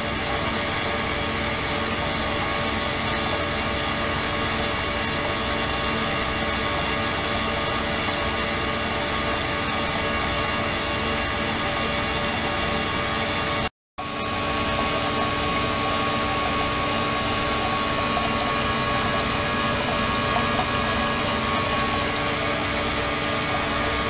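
Flow-through ultrasonic cleaning tank running: a steady mechanical hum and hiss from the circulating pump, the water jet and the ultrasonic transducers, with many steady whining tones over the noise. It cuts out for a moment about fourteen seconds in, then resumes unchanged.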